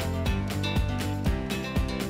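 Background music with a steady beat of about two beats a second over held notes.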